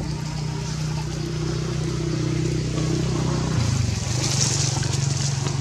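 A motor engine running steadily with a low hum that shifts in pitch about three and a half seconds in.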